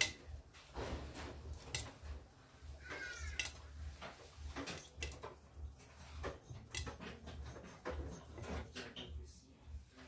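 Samsung EcoBubble front-loading washing machine on a cotton wash, its drum tumbling wet laundry: a steady low motor hum under irregular clicks and clinks as the load turns and drops.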